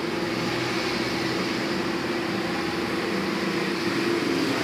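Steady fan-like hum: a constant low droning tone under an even hiss.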